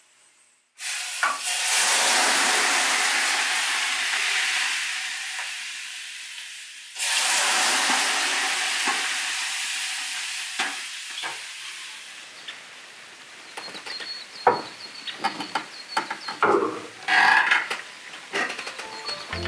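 Water ladled onto the hot stones of a Harvia sauna heater, hissing loudly as it flashes to steam. There are two pours, one about a second in and one about seven seconds in, each hiss fading away over several seconds. Scattered knocks and clicks follow near the end.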